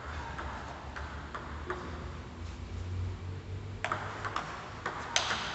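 Table tennis rally: the plastic ball clicking off the bats and the table in an irregular quick series, with the sharpest hits near the end, over a low steady hum.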